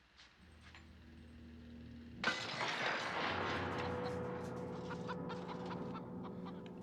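A chicken squawking and clucking from the film's soundtrack, starting suddenly and loudly about two seconds in, over low droning tones.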